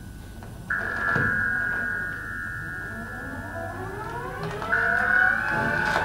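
Live experimental electronic music improvised as a film soundtrack: a sustained high tone that jumps up in pitch and loudness just under a second in, with a cluster of rising, siren-like gliding tones sweeping up beneath it from about halfway.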